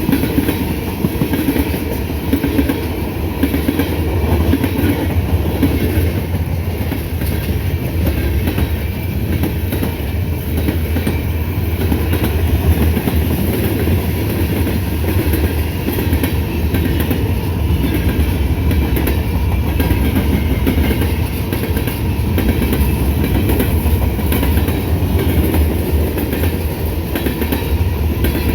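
Freight cars of a mixed manifest train rolling past at steady speed: a continuous heavy rumble with the rapid clickety-clack of steel wheels over the rail.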